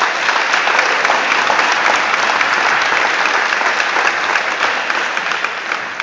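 Audience applauding: dense, steady clapping from many people that tapers off near the end.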